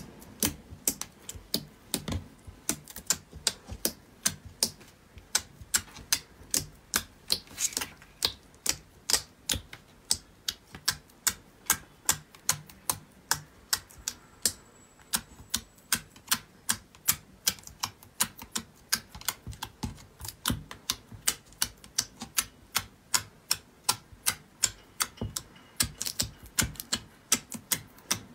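Slime being pressed and poked with the fingers, giving a steady run of crisp popping clicks, about two to three a second.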